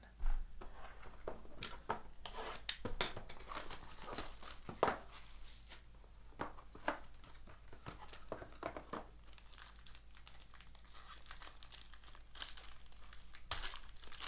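Wrapping on a sealed box and pack of trading cards being torn open and crinkled by hand: irregular rustling with many sharp crackles, the loudest just after the start and again about five seconds in.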